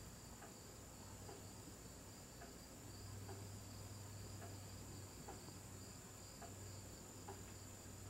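Near silence: quiet room tone with a steady high-pitched whine and a low hum, and faint soft ticks about once a second.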